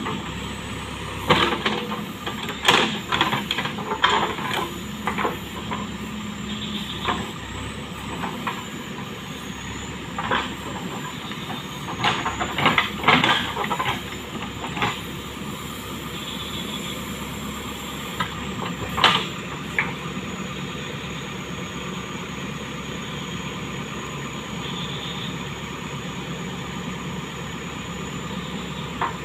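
JCB backhoe loader's diesel engine running steadily as the backhoe digs, with loud clanks and scrapes of the steel bucket against rocks and soil, several in the first half and one more about two-thirds of the way through.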